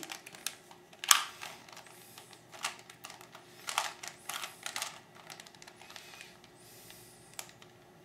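Plastic Rubik's cube layers being turned by hand: irregular clicks and clacks, loudest about a second in and bunched around four seconds, thinning out near the end.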